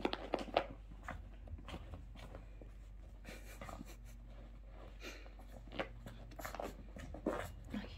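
Small long-haired dog rubbing and rolling on a terry towel on a carpet to dry itself after a bath. Its fur and body rasp against the cloth in irregular scratchy rustles.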